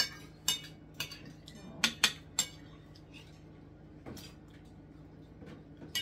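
Metal cutlery clinking and scraping against a plate as food is cut and forked up: a series of sharp, briefly ringing clinks, most in the first two and a half seconds, then one more about four seconds in.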